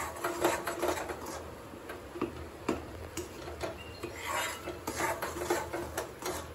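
Metal spoon stirring and scraping thick peanut halwa in a metal kadhai: an irregular run of rasping strokes with small clinks of spoon on pan.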